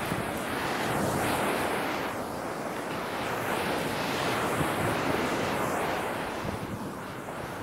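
Surf breaking and washing up on a sandy beach, a continuous rushing noise, with wind buffeting the phone's microphone.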